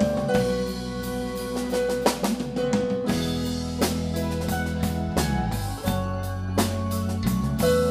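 Live rock band playing an instrumental passage: drum kit with regular hits, electric bass, electric guitar and keyboards holding sustained notes.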